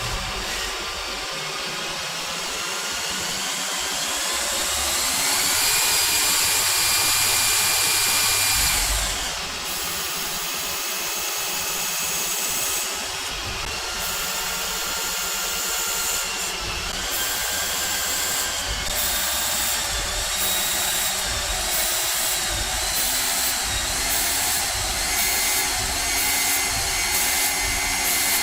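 CNC lathe running and cutting. A machine whine rises in pitch over the first few seconds and then holds. From the middle on, the cutting hiss stops and restarts about once a second, coming quicker toward the end.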